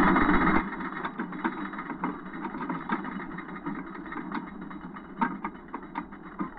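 Wooden roller coaster train climbing the lift hill, with a steady rattling rumble and irregular sharp clicks and clanks from the track. It opens with a loud rush of noise for about half a second.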